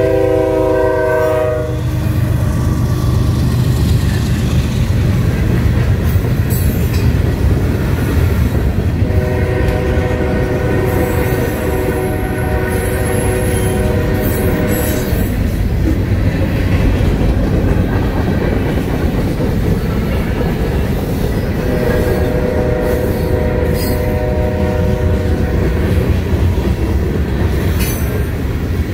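A CSX freight train rolling through a grade crossing: the ES40DC diesel locomotive's horn sounds a chord that cuts off about a second and a half in, then the freight cars rumble and clatter past steadily. The horn sounds again twice, fainter, farther down the line.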